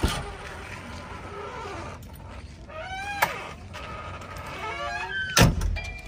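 Cab door of a JCB 3DX backhoe loader being worked: a sharp clack at the start, rising squeaks from the door and cab twice in the middle, and a heavy thud about five seconds in as the door is shut.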